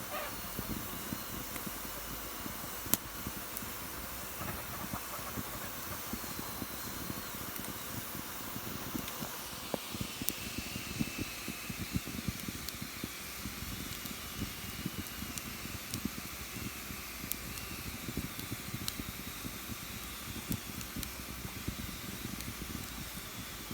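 Fireplace fire burning with a steady hiss and scattered sharp crackles, the loudest pop about three seconds in. From about ten seconds in, a faint wavering whistle runs through the hiss.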